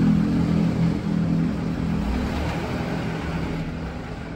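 Truck's diesel engine running steadily, a low hum that grows quieter through the second half.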